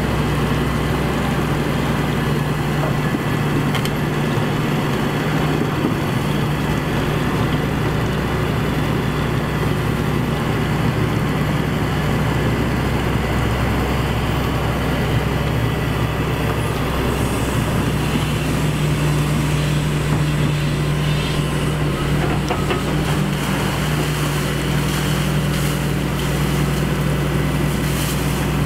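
Heavy diesel engine of an excavator running steadily with a constant low drone, with a few short clicks and knocks in the last several seconds.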